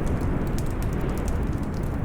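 Wood fire crackling in a fireplace: many small sharp pops and snaps over a steady low rumble.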